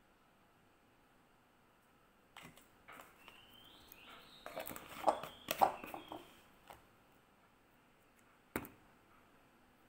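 Kitchen utensils being handled: a spoon and a plastic jar knocking on the counter, with a couple of light taps, then a flurry of clattering knocks about five seconds in, and one sharp click near the end.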